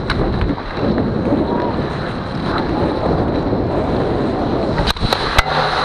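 Wind rushing over a body-worn action camera's microphone as an ice hockey player skates hard, mixed with the scrape and rumble of skating on the ice. Three sharp clacks come near the end.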